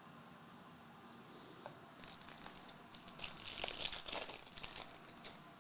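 Foil trading-card pack wrapper being torn open and crinkled: crackly rustling that starts about two seconds in and stops shortly before the end.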